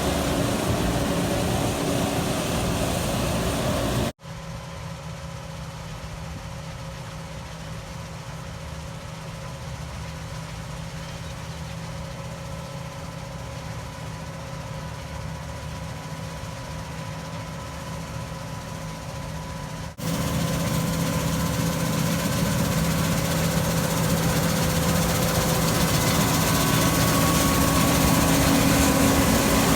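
Heavy farm machinery engines running steadily during wheat harvest. About four seconds in the sound cuts abruptly to a quieter, steady hum, then jumps back to the louder engine sound about two-thirds of the way through.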